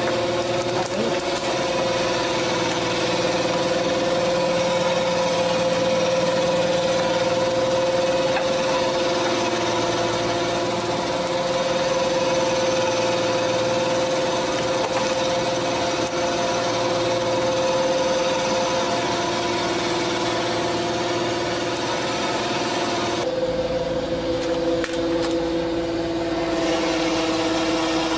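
Steady drone of a fishing boat's engine machinery running while a gillnet is hauled aboard. Near the end the drone shifts to a lower pitch and the hiss above it drops away.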